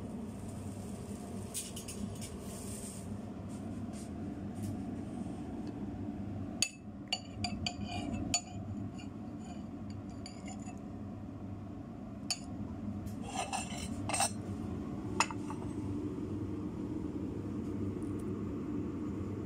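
A metal spoon clinking against a ceramic soup bowl: a quick run of ringing clinks about a third of the way in, then a few more scattered through the second half, over a steady low hum.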